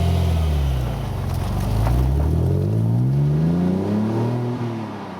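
Alfa Romeo Brera's 3.2-litre V6 engine revving: the pitch drops, then climbs steadily for a couple of seconds and falls again near the end.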